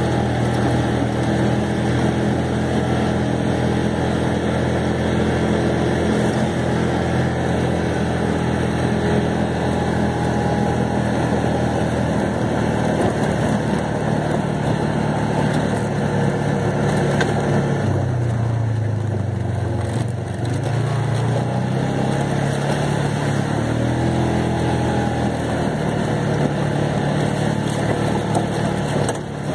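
ATV engine running steadily while driving. Its pitch drops about two-thirds of the way through as it slows, then climbs again as it picks up speed.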